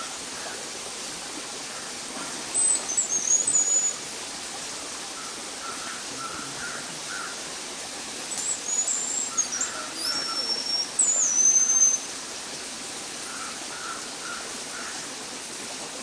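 Sri Lanka whistling thrush giving very high, thin whistled notes that step sharply down in pitch: one short phrase about three seconds in and a longer run of whistles from about eight to twelve seconds in, over a steady hiss.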